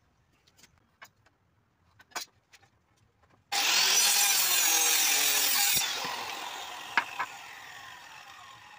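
Handheld electric circular saw started about three and a half seconds in and cutting through a wooden plank for about two seconds, then released so the blade winds down and fades away. Two sharp knocks come as it slows, and a few light taps come before the cut.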